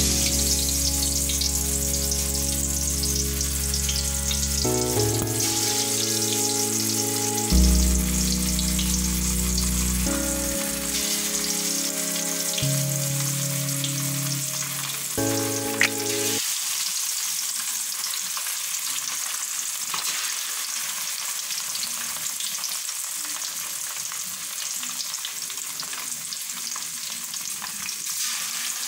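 Masala-coated Indian mackerel (ayala) pieces sizzling as they shallow-fry in hot oil in a kadai, with more pieces laid into the oil. Soft instrumental music with held notes plays underneath for about the first half and then stops, leaving only the sizzle.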